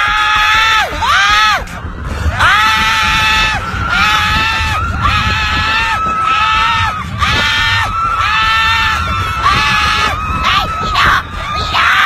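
Roller-coaster riders screaming: a man's long, high screams repeated one after another, each about a second long, over a low rumble of wind and ride noise.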